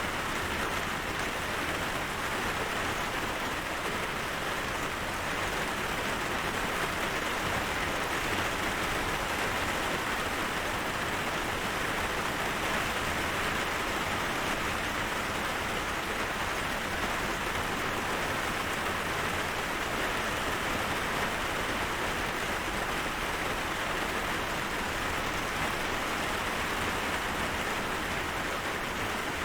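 Steady rain falling, an even hiss that holds at the same level with no breaks or swells.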